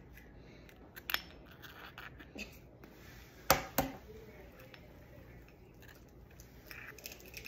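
Eggs being cracked and handled over a mixing bowl: a light click about a second in, then two sharp taps close together about three and a half seconds in, the loudest sounds, with faint clicks of shell near the end.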